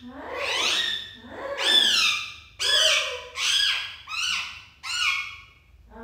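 Alexandrine parakeet vocalizing: a run of about six loud, high-pitched calls, each rising then falling in pitch, one every second or so.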